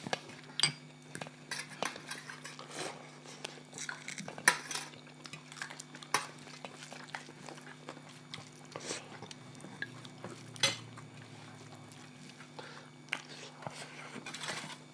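Scattered clinks and scrapes of cutlery and plates during a meal, with a steady low hum underneath.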